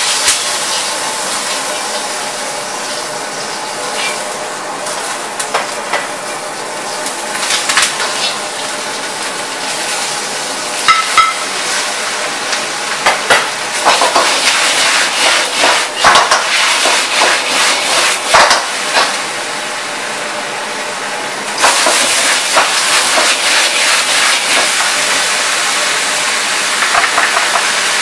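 Beef ho fun (rice noodles, beef, onion and bean sprouts) stir-fried in a wok over a high gas flame at maximum heat: a steady loud sizzling hiss, with a metal ladle scraping and clanking against the wok in quick irregular strokes. The sizzle gets suddenly louder about three quarters of the way through.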